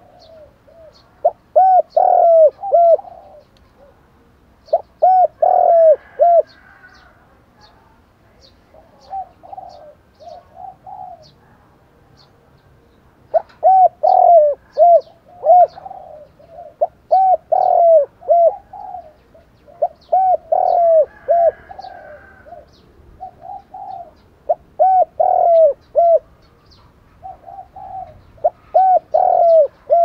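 Spotted dove cooing: quick runs of short, arched coo notes, a burst every three or four seconds. Faint high ticking chirps sound in the background through much of it.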